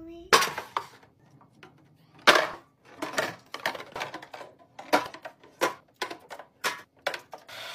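Aluminium drink cans being set one after another into a clear plastic fridge can organizer: a string of a dozen or so sharp clacks and knocks of can on plastic and can on can.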